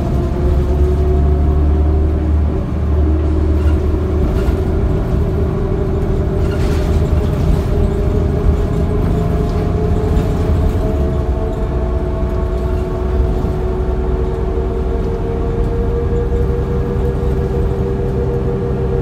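2004 New Flyer D40LF bus with a Cummins ISL diesel engine heard from inside the cabin while under way: a steady low engine rumble with a drivetrain whine that rises slowly in pitch as the bus gathers speed.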